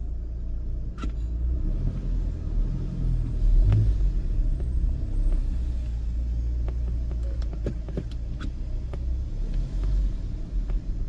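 A car driving slowly, heard from inside the cabin: a steady low engine and road rumble that swells briefly a few times, with a few faint clicks.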